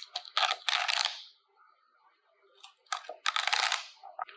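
Chef's knife cutting through celery stalks on a wooden cutting board: two quick runs of crisp crunching cuts, one at the start and one about three seconds in.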